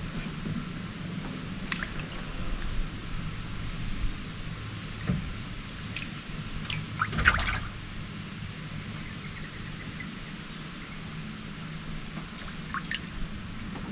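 Water trickling and dripping with small splashes over a low steady hum, and one louder splash about seven seconds in.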